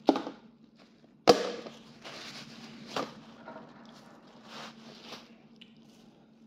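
Plastic bags and takeout packaging rustling as they are handled. There is a sharp knock at the start, a louder one about a second in and a smaller one around three seconds, over a faint steady low hum.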